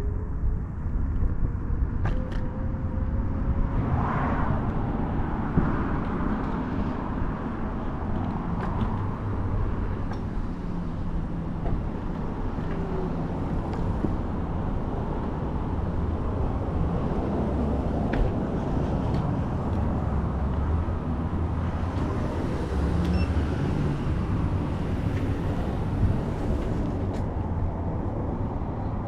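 Wind buffeting the microphone over the rumble of an Apollo Go electric scooter's tyres on a sidewalk, with a faint whine rising in pitch over the first few seconds as it speeds up.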